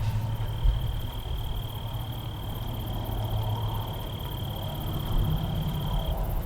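Outdoor evening ambience: a single steady high-pitched trill holds for about six seconds and cuts off near the end, over a low rumble.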